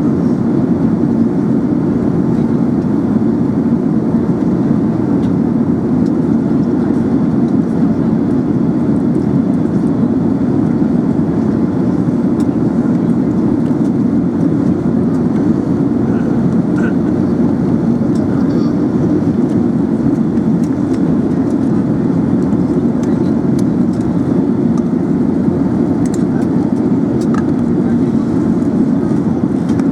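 Steady cabin noise inside an Airbus A380 in flight: an even, low drone of engines and airflow with no change in level.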